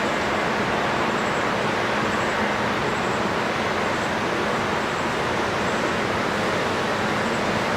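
Steady rush of flowing water, with faint high-pitched bird chirps repeating about once a second.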